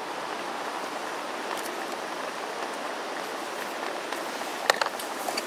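Steady hiss of a gas canister stove burning under a pot of simmering pasta, with a few light handling clicks, the sharpest near the end.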